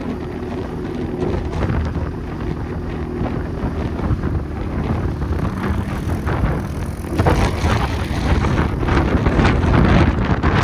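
ATV engine running under way, with wind buffeting the microphone. The wind rush gets louder about seven seconds in.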